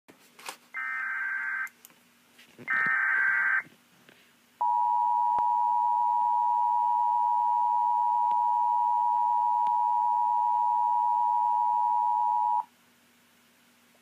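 Emergency Alert System alert from a laptop's speakers: two short bursts of SAME header data, then the steady two-tone EAS attention signal held for about eight seconds before it cuts off.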